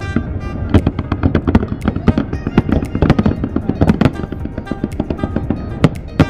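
Aerial fireworks display: shells bursting in rapid, overlapping bangs, several a second, with music playing underneath.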